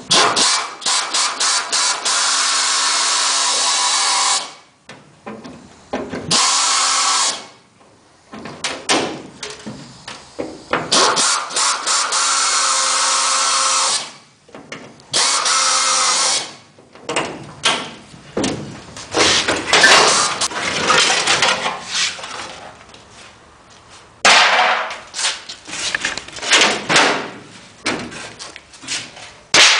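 Handheld air drill drilling out rivets in the aluminium skin of a Cessna 180 wing, running in spells of a few seconds with short pauses, then in shorter, stop-start bursts.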